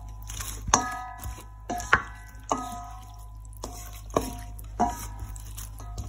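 Wooden spatula tossing a wet, dressed salad in a stainless steel mixing bowl. It knocks against the bowl about once or twice a second, and the bowl rings briefly after each knock, with a wet squelch of the dressing between.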